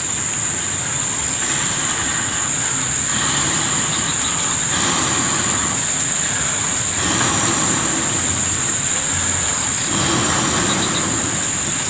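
Steady high-pitched drone of insects, with a softer rushing noise that comes and goes several times.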